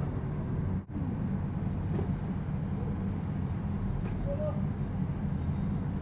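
Steady low rumble of the iron-melting cupola furnace's air-blast blower running. It cuts out for an instant just under a second in.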